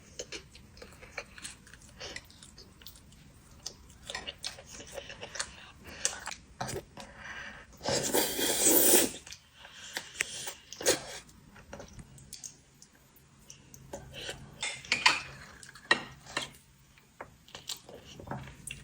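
Utensils clicking and scraping against dishes during a meal, in scattered short knocks, with a louder burst of noise lasting about a second around eight seconds in.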